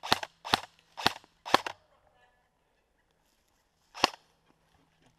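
Airsoft gun firing single shots: four sharp cracks about half a second apart, then one more about two and a half seconds later.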